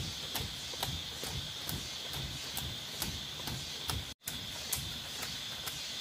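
Night-time rainforest insect chorus: a steady high-pitched drone with a regular ticking about twice a second. The sound cuts out completely for a moment about four seconds in.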